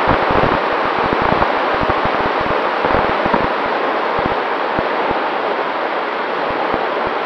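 Steady wind rush over the microphone of a Runcam 2 camera riding on an RC flying wing in flight, broken by frequent short low thumps of buffeting, with a faint steady tone underneath.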